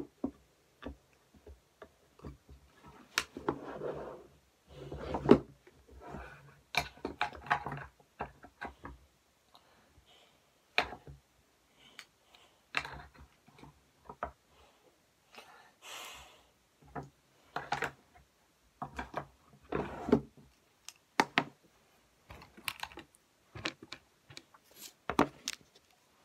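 Things being handled and moved around in a small room: scattered clicks and knocks with short rustles between them, and quiet gaps, as things are picked up and set down during tidying.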